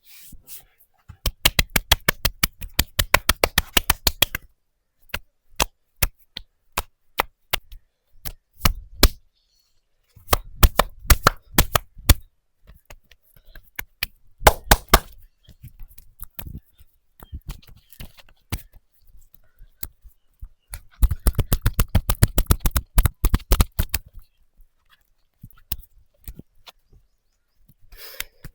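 Hands striking the body in a percussive massage: runs of quick, sharp slaps or chops, about eight a second, each lasting one to three seconds, four times over, with single sharp hits in between.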